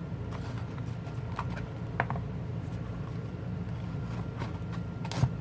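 Low, steady background rumble with faint scattered clicks and two sharper taps, one about two seconds in and one near the end.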